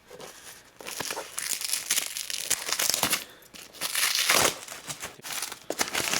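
Plastic packaging crinkling and rustling in irregular surges as a new computer is lifted out of its box and unwrapped, starting about a second in.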